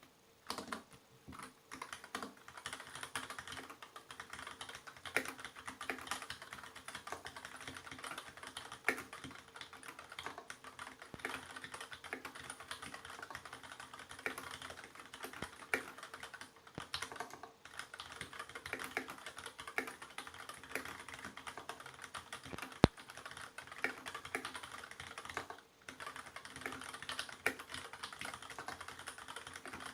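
Fast, continuous typing on a Varmilo VB87M tenkeyless mechanical keyboard with light linear Gateron Clear switches, a steady patter of key clicks and bottom-outs. One key strike about three-quarters of the way through is much sharper and louder than the rest, and the typing pauses briefly shortly after.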